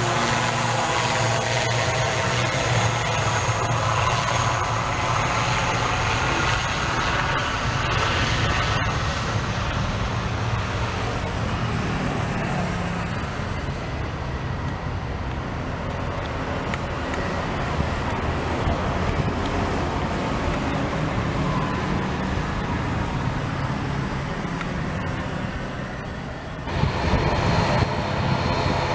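Twin turboprop engines of an ATR 72-600 running, a steady propeller drone with a high whine in it. Near the end the sound changes abruptly and grows louder.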